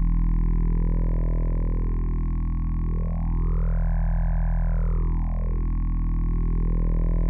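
Sustained drone from the Moselle software synthesizer's wavetable oscillators, played straight out with no filter, effects or volume envelope. A steady low bass and a steady higher tone hold under a band of overtones that glides up and back down, highest about four seconds in, as the wavetable's timbre shifts.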